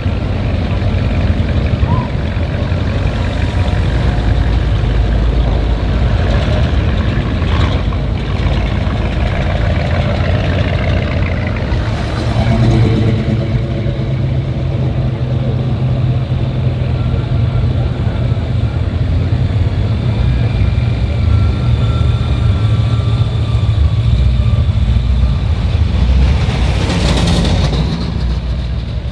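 Several classic cars and trucks passing slowly in a line, their engines running with a steady low rumble. There are louder swells as vehicles go by, about twelve seconds in and again near the end.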